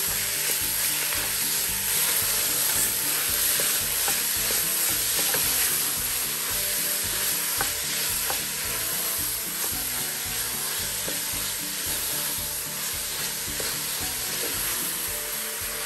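Minced beef sizzling as it fries in oil with onions in a steel pot, stirred with a wooden spoon that scrapes and taps against the pot now and then.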